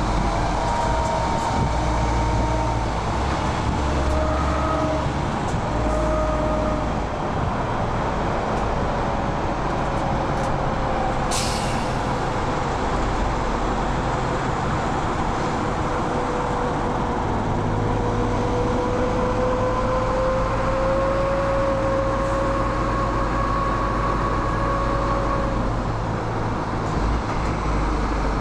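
MAN TGX 18.470 truck's diesel engine and drivetrain running steadily under way, with a slowly rising and falling whine over a heavy low drone. A brief hiss comes about eleven seconds in.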